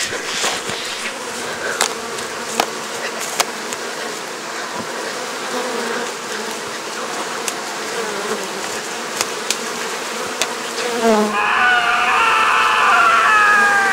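Buzzing, rustling noise with scattered sharp clicks. About eleven seconds in, a steady whine of several pitches at once comes in.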